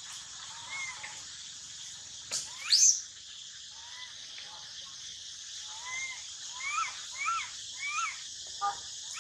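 Baby macaque giving short, arching crying calls: one under a second in, then more from about four seconds, with three in quick succession near the end. A loud rising squeal about two and a half seconds in is the loudest sound, over a steady insect drone.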